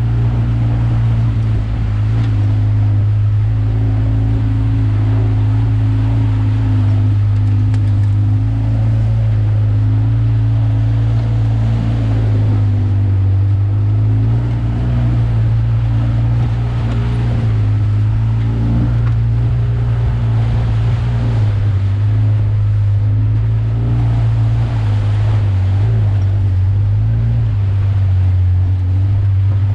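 ATV engine running with a steady low hum, its note rising and dipping a little now and then as it crawls through mud ruts and puddles.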